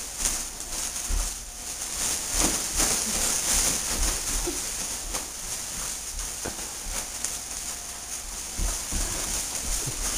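Rustling of bulky costumes and irregular thumps from people dancing, over a steady hiss.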